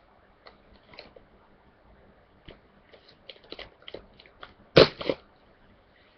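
Trading-card pack kit packaging being wrestled open by hand: scattered small crinkles and clicks, then two loud sharp cracks close together a little before the end.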